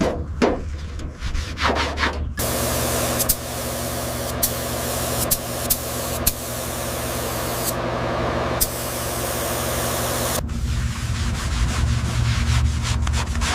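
Hand sanding strokes rubbing back and forth, cut off after about two seconds by a steady loud hiss with a few sharp clicks that lasts about eight seconds, then sanding strokes again with a low steady hum underneath.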